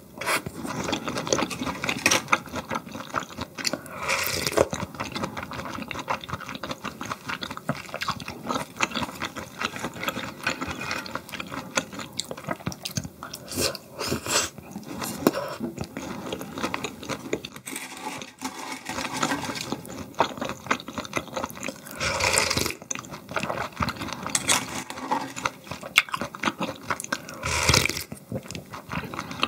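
Close-miked eating sounds of a meal of pork ribs and cold noodles: irregular chewing and wet mouth clicks, with a few longer slurps about 4 seconds in and again near the end.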